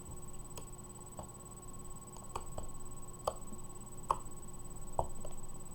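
Glue-and-detergent slime being handled, giving scattered small wet pops and clicks, about one every half second to a second.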